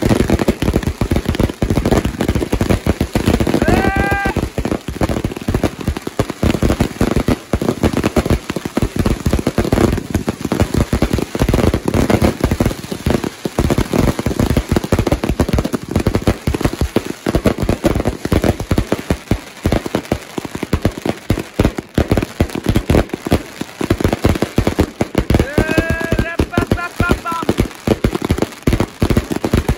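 Firework cakes firing in a dense, unbroken stream of bangs and crackling. A short rising whoop-like call cuts through twice, a few seconds in and again near the end.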